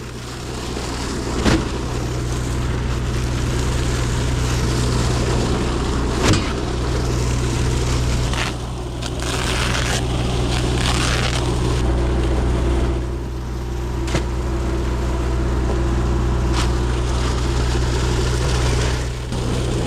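A hydroseeder's engine running steadily at constant speed, with a few short sharp knocks over it.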